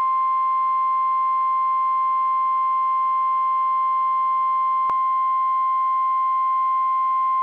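NOAA Weather Radio 1050 Hz warning alarm tone: one steady, pure, high-pitched tone that signals a weather watch or warning message is about to follow. A brief click about five seconds in.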